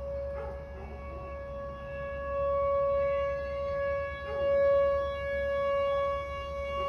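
Outdoor warning siren sounding during a test: one steady, held note with overtones, its loudness swelling and fading several times.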